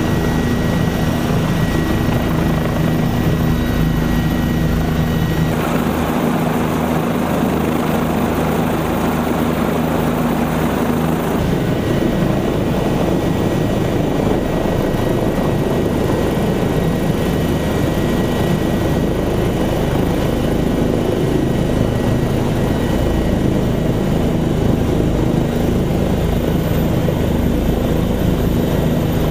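OH-58 Kiowa helicopter's turboshaft engine and rotor running steadily at close range, heard from the cockpit: a loud, dense rotor noise under a thin, high turbine whine. The sound shifts abruptly twice, about five and eleven seconds in.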